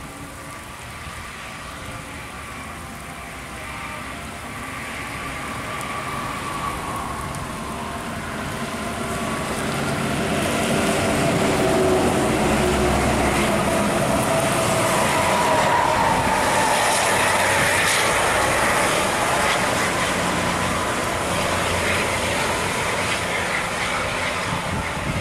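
Intercity coaches passing at highway speed on a wet road: engine and tyre noise building over the first half, holding loud through the middle and easing slightly near the end, with engine tones falling in pitch as the buses go by.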